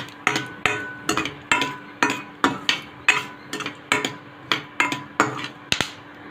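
A metal spoon scraping and stirring peanuts in hot oil in a metal kadai, in quick strokes about three a second, with a ringing tone from the pan. The strokes stop shortly before the end.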